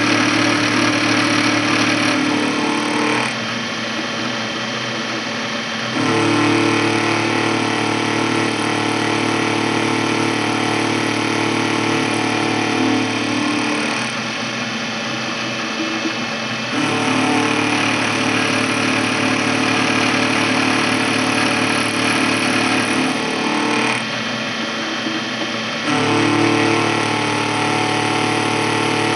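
Milling machine running an end mill through a slot in a steel clamp blank: a steady motor hum with a cutting whine over it. The sound drops back three times, for two or three seconds each, between passes.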